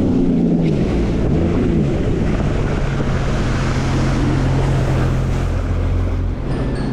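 Sea-Doo jet ski running at speed across open water, with wind rushing over the microphone. The engine note wavers in the first two seconds, then holds steady.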